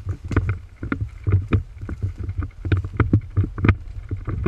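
A steady low rumble overlaid with irregular knocks and crunches, several a second.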